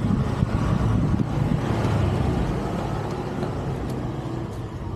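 Motor vehicle passing close by, its rumble loudest in the first couple of seconds and then fading.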